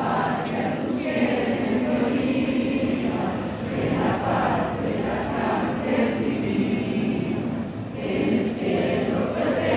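A large group of schoolchildren singing together in unison, with long held notes and short breaks between phrases.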